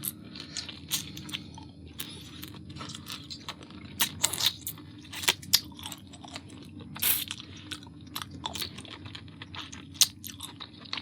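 Lobster shell being cracked and eaten, close to the microphone: irregular sharp cracks and crunches mixed with chewing.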